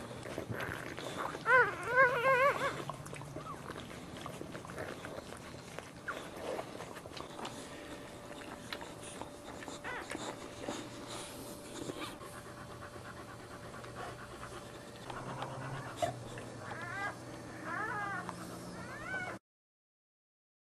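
Newborn boxer puppies whimpering and squeaking in short, wavering high-pitched cries, loudest about two seconds in and again near the end.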